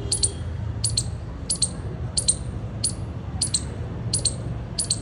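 Squirrel giving a run of short, high-pitched clicks, mostly in close pairs, repeating steadily about one and a half times a second.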